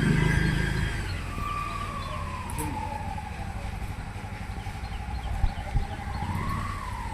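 Road traffic rumbling, with a siren wailing in a slow falling and rising tone. Two short knocks come about five and a half seconds in.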